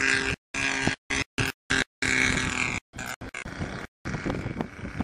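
Engine of a radio-controlled model aircraft in flight, a steady droning note. The sound cuts out abruptly again and again for brief moments.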